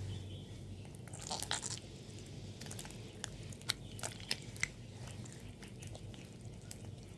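Wet, sticky slime being kneaded and pulled by hand, giving scattered small clicks and squelches, with a brief burst of squishing about a second in. The slime is still too wet.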